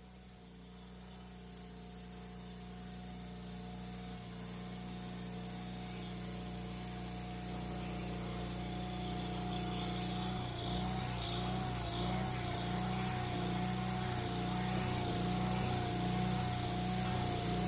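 Wood-Mizer portable band sawmill running: its engine and band blade give a steady hum with a higher whine above it, growing louder over the first several seconds. From about ten seconds in, the engine note pulses rhythmically.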